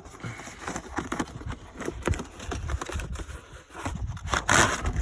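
Hands handling plastic parts: irregular scraping, crinkling and clicks, with a louder scraping rush about four and a half seconds in.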